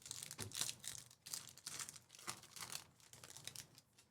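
Soft, irregular rustling and crinkling of trading cards and their packaging being handled, a scatter of short brushing sounds.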